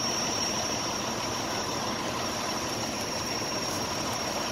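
Fire apparatus engine running steadily, with a thin, constant high whine over it.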